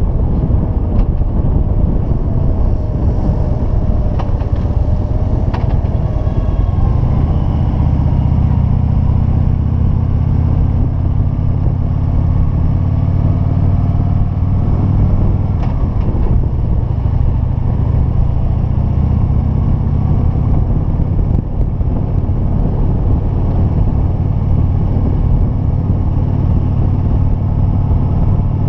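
Motorcycle engine running steadily under way, heard from the bike with wind rushing over the microphone. The wind rush eases several seconds in, leaving the engine's low, even hum more to the fore.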